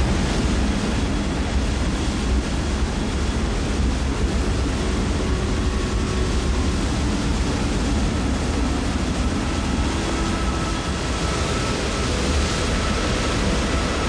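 Steady roar of a large waterfall, an even rushing noise that holds at the same level throughout.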